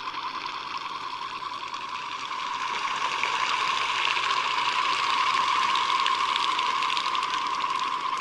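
Surf scoter sound: a rapid, steady, fast-pulsing buzz at one pitch, growing louder over the first half and then holding.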